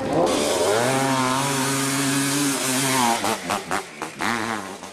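Dirt bike engine revving up and held at high revs as it climbs a steep slope, then cutting in and out in short bursts of throttle over the last two seconds.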